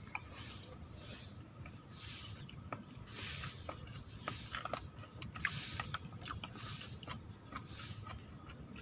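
A person eating rice with a metal spoon: faint chewing and mouth sounds, with small clicks and scrapes of the spoon against a plastic bowl.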